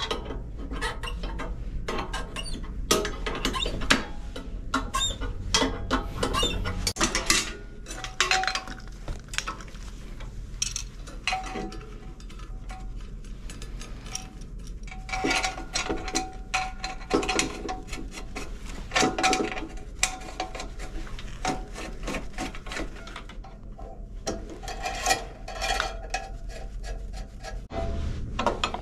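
Metal parts and fittings of an espresso machine clinking, knocking and rubbing as they are handled and worked into place, with many irregular sharp clicks and clanks over a low steady hum.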